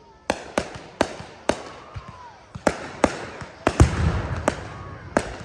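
Aerial fireworks going off: a quick run of about ten sharp bangs with crackling between them, the loudest a deep boom about four seconds in.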